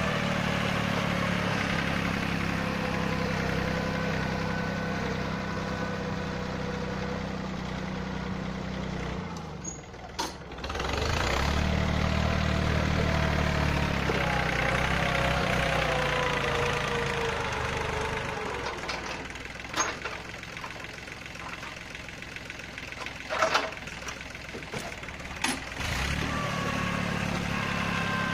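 Yanmar 1145 tractor's diesel engine running, with a faint wavering whine above it. It drops out briefly about ten seconds in, then picks up again. Later it runs lower, with three sharp metal clanks, and comes back up near the end.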